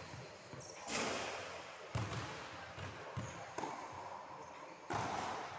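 Tennis rally: a ball struck by racquets and bouncing on a wooden sports-hall floor, a sharp knock roughly every second, each echoing in the large hall.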